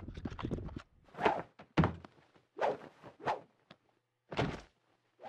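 Cartoon sound effects of a bear sitting down on a small box: a short low rumbling scuff, then several separate dull thumps.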